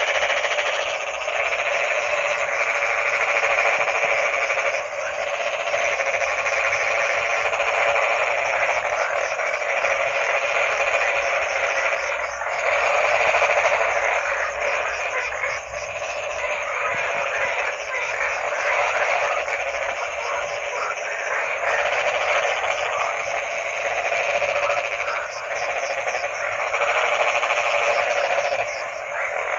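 A dense chorus of many frogs croaking at once: a steady, thick mass of rapid pulsed calls with little bass.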